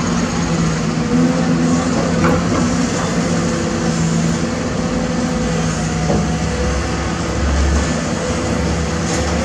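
Caterpillar 320D excavator's six-cylinder diesel engine running steadily under load as it digs and raises a full bucket of soil, with a few knocks and a deeper rumble about six to eight seconds in.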